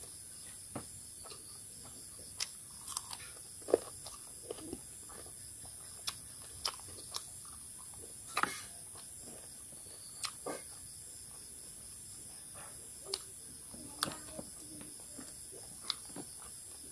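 Close-up eating sounds of a man chewing rice and boiled chicken: scattered short wet mouth smacks and crunches, the loudest a few seconds in and again about eight seconds in, over a steady high hiss.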